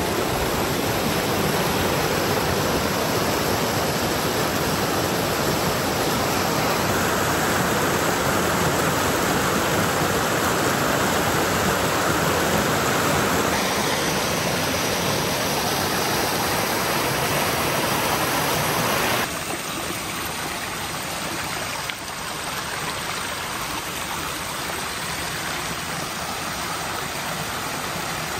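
Small forest creek rushing and splashing over rocks in a steady stream of water noise. It gets a little quieter about two-thirds of the way in.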